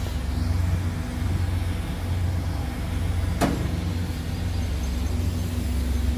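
Steady low drone of a ship's machinery heard on deck, with one sharp click about three and a half seconds in.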